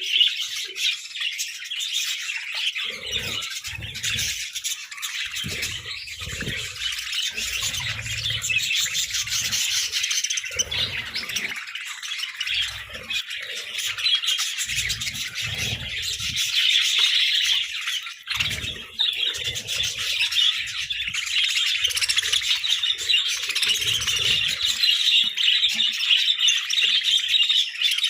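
A flock of budgerigars chattering and chirping continuously, many birds at once, with irregular low rumbles underneath.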